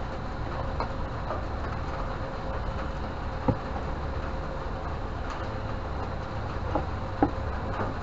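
Steady low rumble with a faint constant hum, broken by a few light knocks from a circuit board being handled, about three and a half seconds in and twice near the end.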